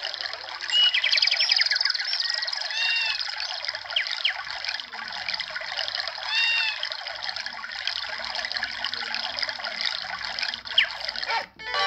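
Samsung SGH-D410 mobile phone playing a built-in nature-sounds tone through its small speaker: running water with birds chirping over it. It stops abruptly near the end.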